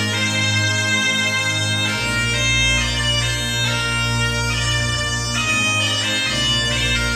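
A bagpipe band playing a tune together over a steady drone, the melody moving through quick notes.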